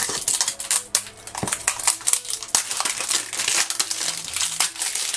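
Thin plastic shrink-wrap film crinkling and crackling as it is peeled and pulled off a small plastic-and-cardboard toy box by hand, a dense run of quick crackles.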